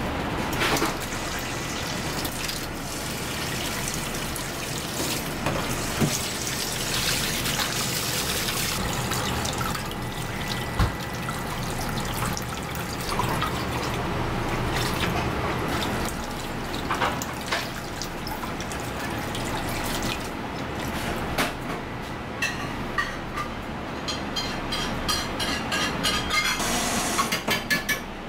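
Running tap water in a stainless-steel sink while fish pieces are rinsed in a bowl, with scattered clicks and clatter of kitchen utensils and a quick run of clicks near the end.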